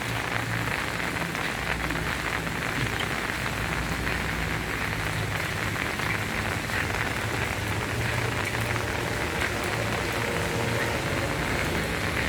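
Heavy rain falling on an umbrella canopy, with splashing water: a steady, dense patter of drops that does not let up.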